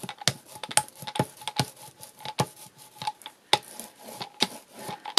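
Rubber brayer rolled back and forth over paint-coated, textured card, giving irregular light clicks and taps about three or four a second.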